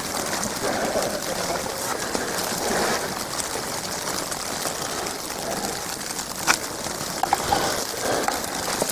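Steady hiss of wet snow falling on an umbrella held over the camera, with a single sharp tap about six and a half seconds in.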